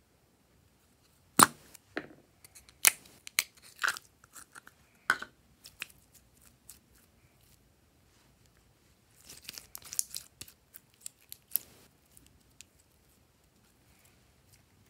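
A plastic slime tub is handled and opened, then clear glitter slime is pulled out and stretched. The sound is scattered sharp clicks and sticky crackles, with the loudest click early on and a dense run of crackling about two-thirds through.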